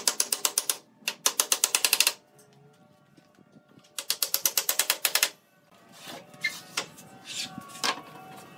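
Wooden mallet tapping wooden pegs into the joints of a pine frame, in three quick runs of sharp knocks, about eight to ten a second: at the start, about a second in, and about four seconds in. A few lighter scattered knocks follow near the end.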